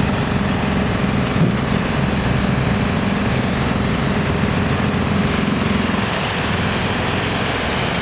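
Yulong GX2113 drum wood chipper running steadily: a loud, continuous machine din with an engine hum underneath and a brief knock about one and a half seconds in.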